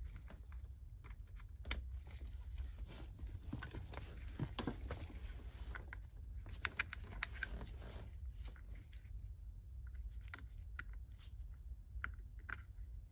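Small clicks, crackles and rustles of hands in nitrile gloves fitting plastic wiring connectors onto the back of an AEM wideband air/fuel gauge, with one sharper click a couple of seconds in, over a steady low hum.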